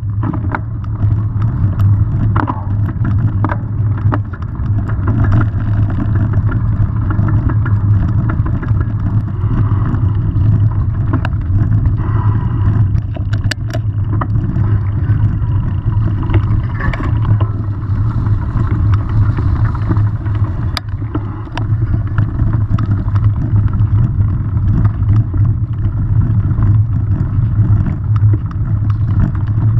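Mountain bike riding over a rough dirt trail: a loud, steady rumble of tyres and wind on the camera's microphone, with scattered knocks and rattles as the bike hits bumps.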